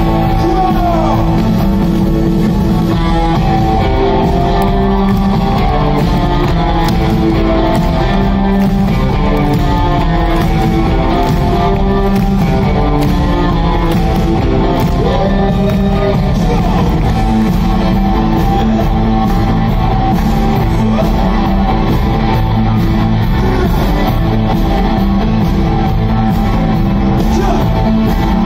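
Rock band playing live in a large arena, heard from the stands: a singer over electric guitars and a steady drum beat, loud and continuous.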